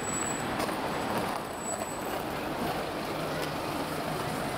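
Steady road traffic noise on a busy city street.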